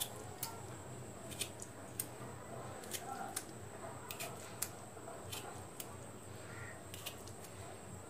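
Metal fork tines pricking firm amla (Indian gooseberries): irregular sharp clicks, about one or two a second, over a faint steady high whine.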